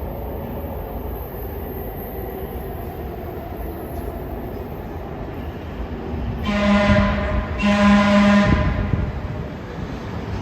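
LA Metro B/D Line subway train rumbling in the station, with two horn blasts of about a second each a little past halfway through.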